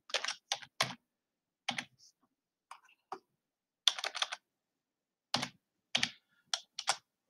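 Computer keyboard typing: short runs of keystroke clicks with pauses between them.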